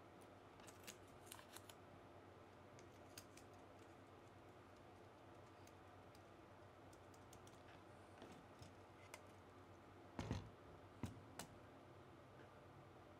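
Near-quiet room with a few light clicks and taps of small metal parts and a screwdriver being handled on a circuit board, then a louder knock about ten seconds in, followed by two sharp clicks.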